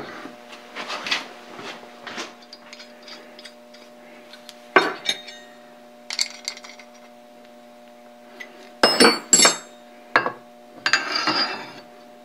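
Steel machine-tool parts being handled and set down on a workbench: scattered metal-on-metal clinks and knocks, with a sharp clank about five seconds in and a couple of ringing clinks around nine seconds.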